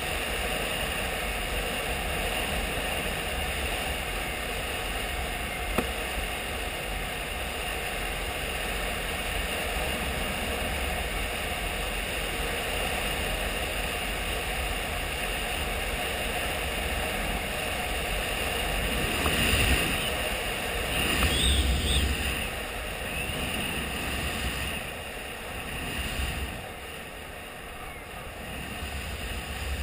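Honda XRE 300 single-cylinder motorcycle engine running at a steady cruise on a dirt road, mixed with wind rushing past the handlebar-mounted microphone. It gets louder for a few seconds about two-thirds of the way through.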